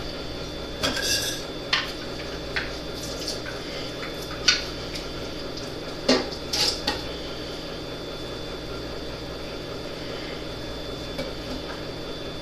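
Dishes and utensils clinking and knocking as they are handled, a handful of sharp clinks in the first seven seconds, then only a steady background hum.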